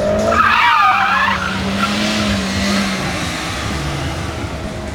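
Mini Cooper tyres squealing in a skid, a wavering screech that starts about half a second in and lasts about a second, over the steady hum of the car's engine, which fades a few seconds in.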